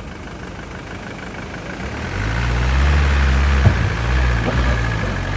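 A motor vehicle's engine running with a steady low hum that grows louder about two seconds in.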